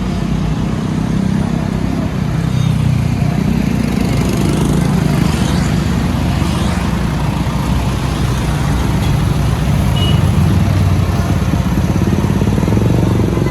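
Caterpillar backhoe loader's diesel engine running steadily under working load, its note rising and falling a little.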